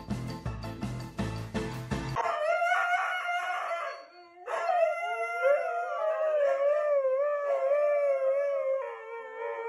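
Upbeat background music with a steady beat, then from about two seconds in dogs howling. After a brief break near four seconds, a husky gives a long howl that wavers up and down in pitch.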